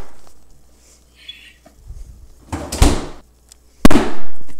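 A few handling knocks and two sharp bangs, the second and loudest about four seconds in, fading away after it.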